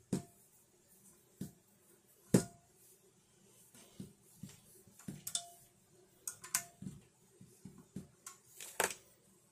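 Scattered small clicks, taps and clinks from a mic adapter module and hex key being handled and fitted to a monitor arm's head, with a sharper knock about two and a half seconds in and another near the end.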